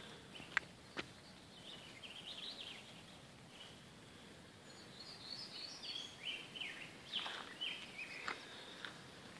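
Songbirds singing in the trees: twittering high-pitched phrases about two seconds in and again from about five to eight seconds in, over a faint steady hiss of the wet outdoors. A few short, soft taps fall in among the song.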